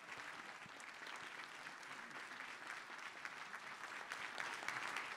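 Audience applauding: dense, even clapping that starts abruptly and swells slightly near the end.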